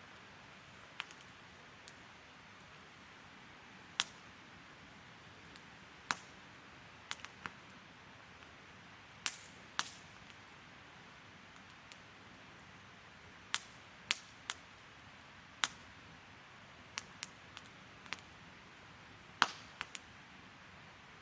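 Wood campfire crackling: sharp pops and snaps at irregular intervals, a few much louder than the rest, over a soft steady hiss.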